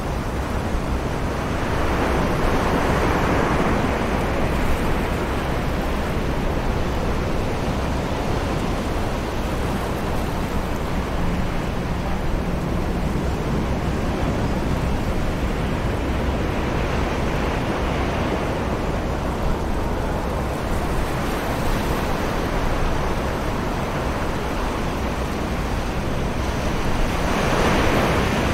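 Distant ocean waves washing onto a beach, a continuous wash that swells into surges about two seconds in, around eighteen seconds and near the end, over a steady low rumble of wind.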